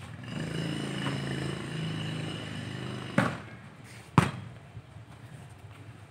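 A steady droning hum for about three seconds, then two sharp thuds of a football being kicked, about a second apart, the second louder.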